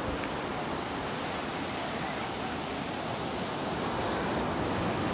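Surf breaking and washing up onto a sandy beach, a steady wash of noise.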